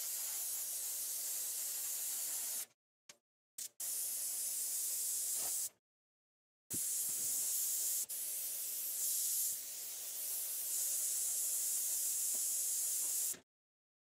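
Airbrush spraying paint in bursts as the trigger is pressed and released: a spray that stops about three seconds in, two short puffs, a two-second spray, then a long spray of about seven seconds.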